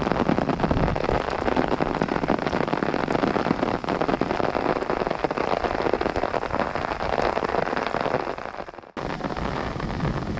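Heavy rain pattering on an umbrella overhead: a dense, steady patter of drops that really is coming down. It cuts out suddenly about nine seconds in and resumes at once.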